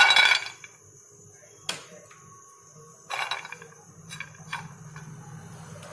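Almonds and cashews poured from a small glass bowl clatter into a dry non-stick frying pan, a short loud rattle at the start. It is followed by a click and then a few lighter rattles and clicks as the nuts are shifted around the pan by hand.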